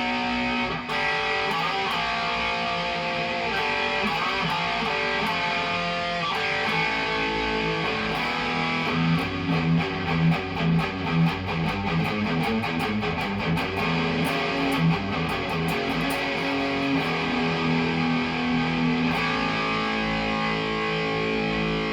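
Cort Viva guitar being played: ringing chords and held notes, with a run of quickly picked single notes about nine to twelve seconds in.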